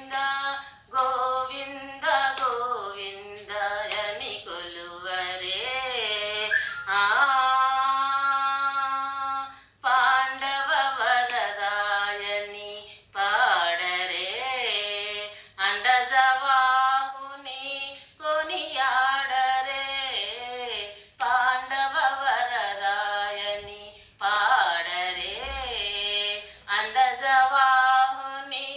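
A woman singing a devotional song in long, ornamented melodic phrases, with brief pauses between them.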